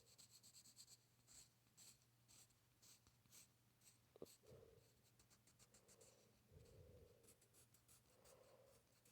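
Faint drawing strokes: a pencil or pen scratching on a surface in short, quick strokes, some in rapid runs.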